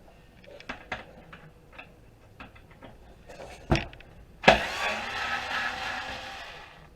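Small clicks and knocks of desktop-computer parts being handled and worked apart. Then comes a loud knock, and a sharp hit followed by about two seconds of rattling clatter that fades away.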